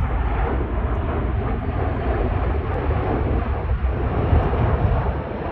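Airbus A340's four jet engines on landing approach as the airliner passes low: a steady, loud rumble.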